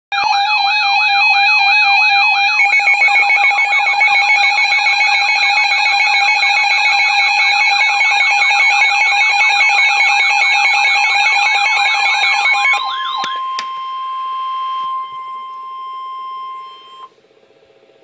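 NOAA weather radio sounding its alert alarm for a severe thunderstorm warning: a loud warbling electronic siren, joined by fast pulsing beeps about two and a half seconds in, that stops about thirteen seconds in. After a couple of clicks, a single steady warning tone holds for about four seconds and then cuts off.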